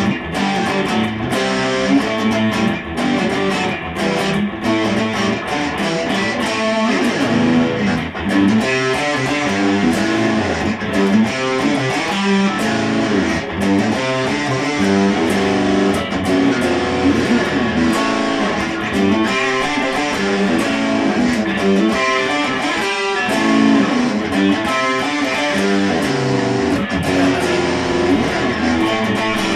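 An electric guitar and an acoustic guitar played together, a continuous run of picked notes and chords.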